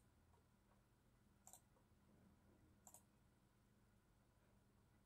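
Two faint computer mouse clicks about a second and a half apart, over near silence.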